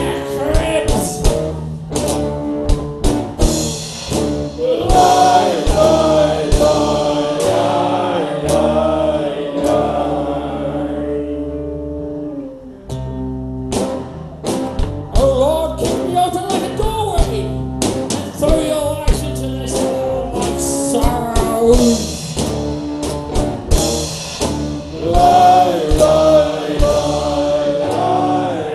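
Live band playing: drum kit, acoustic and electric guitars, with voices singing. The drums break off for a moment about twelve seconds in, then come back in.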